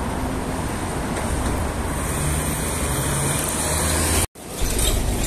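Steady road traffic noise from cars on a wide multilane city road, briefly cutting out about four seconds in before resuming.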